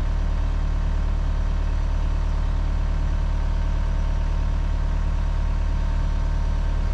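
Diesel engine of heavy construction equipment running steadily at idle, a low, even hum with no change in speed.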